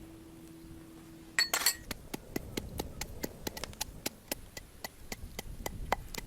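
A utensil clinking against a dish: a louder clatter about a second and a half in, then quick, even clinks at about four a second, as seasonings are mixed.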